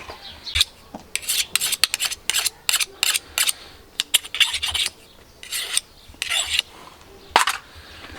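A farrier's rasp scraping across a hoof in short, quick, irregular strokes, with a single sharp knock about seven seconds in.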